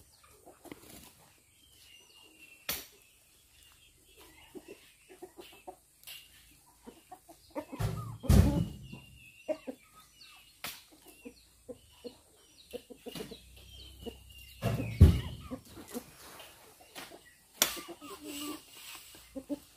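Chickens clucking close by, with a few sharp clicks. Twice, about eight and fifteen seconds in, a loud heavy thud as an oil palm fruit bunch is thrown into the steel body of a dump truck.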